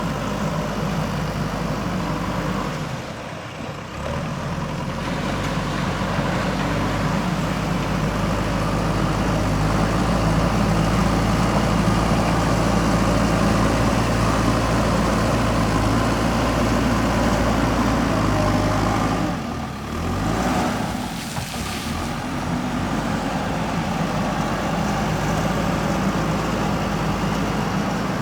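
JCB backhoe loader's diesel engine running steadily under working load. The sound dips briefly twice, about three seconds in and again about two-thirds of the way through, then picks back up.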